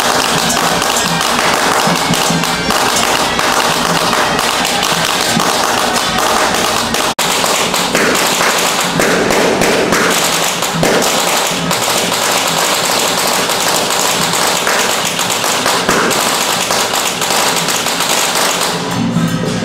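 A long string of firecrackers going off in a rapid, continuous crackle, with a brief dropout about seven seconds in; the crackle dies away near the end.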